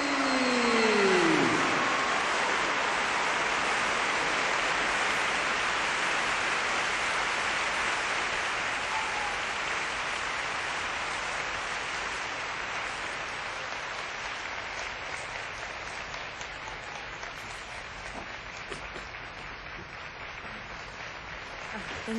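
Large audience applauding steadily, loudest at the start and slowly dying away, with a couple of falling whoops in the first moments.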